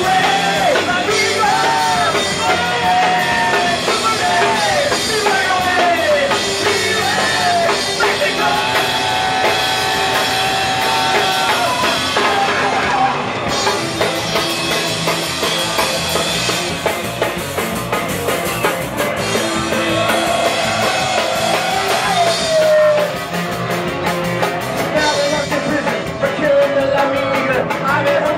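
Rock music with a drum kit, guitar and singing, the melody bending in pitch.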